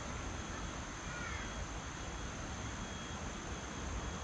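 Woodland ambience: steady low background noise with thin, steady insect tones over it. About a second in, a brief high call of two quick sliding notes sounds once.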